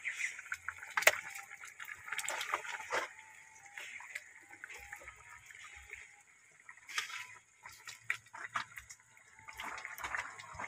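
Soupy coconut-milk curry being ladled from a large metal pot into a ceramic bowl: liquid pouring and splashing, with scattered light clinks of the ladle against the pot and bowl.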